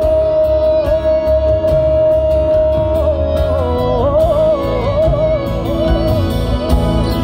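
Live band music with a male singer holding one long note, then bending it up and down in a wavering run from about three and a half seconds in.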